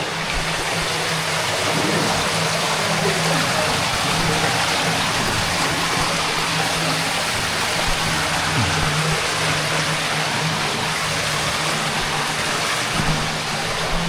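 Steady rushing of flowing water in a flooded cave.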